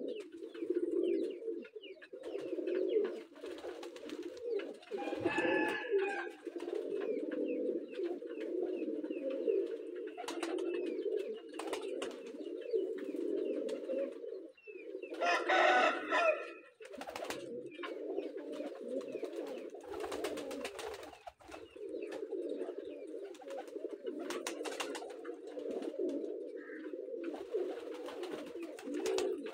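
A flock of domestic pigeons cooing continuously, many birds overlapping, with scattered sharp clicks. Twice a louder, higher sound cuts in briefly, about five and fifteen seconds in.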